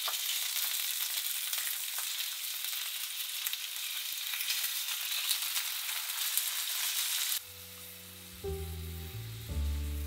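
Sea bream fillets sizzling in oil in a stainless steel frying pan, with a steady hiss. About seven seconds in, the sizzling cuts off and calm instrumental music begins.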